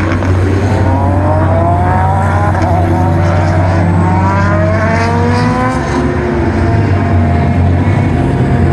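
GT2 race car engine accelerating hard, its pitch climbing, dropping back about two and a half seconds in as it shifts up, then climbing again before holding an even note for the last few seconds. A steady low drone runs underneath.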